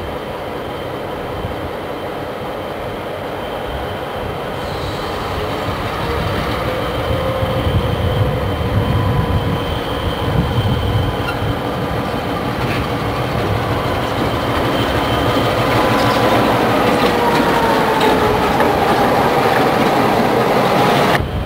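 Diesel switcher locomotive running light, its engine and wheels growing louder as it rolls up to and past the camera. Near the end, ringing tones slide down in pitch as it goes by.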